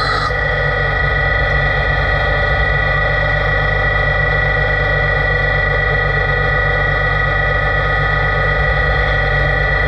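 LT-65 lathe running steadily: a constant machine hum with a steady high-pitched whine. A short hiss cuts off just after the start.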